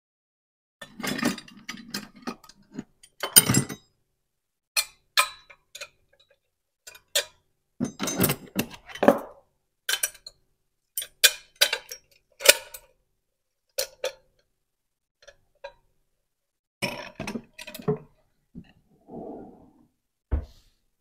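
Pyrex glass measuring jug and copper measuring cups clinking and knocking as they are handled and set into a kitchen drawer. Near the end, a short low thud as the drawer is pushed shut.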